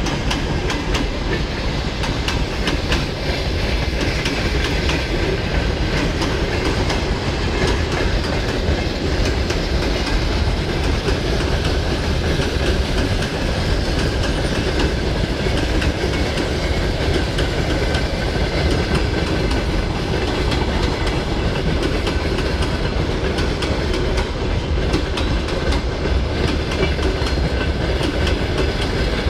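Freight train wagons (boxcars and covered hoppers) rolling past close by: a steady rumble of wheels on rail with a continuous clickety-clack of wheels passing over rail joints.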